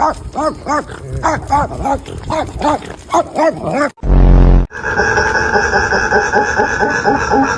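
A dog vocalising: a quick string of short whining yips that rise and fall in pitch, then, about four seconds in, a brief very loud deep burst, followed by a long drawn-out sustained sound.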